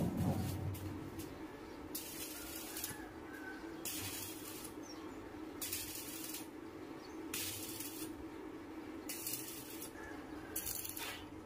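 Stick arc welder tack-welding the steel plates of a boat hull: about six short crackling hisses, each half a second to a second long, over a steady low hum. A dull thud at the very start.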